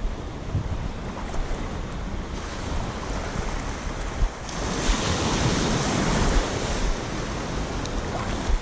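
Small surf waves breaking and washing up the beach, the wash swelling louder about halfway through, with wind buffeting the microphone in low thumps.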